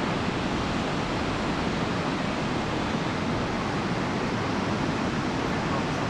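Ocean surf making a steady, even rushing noise, with wind mixed in.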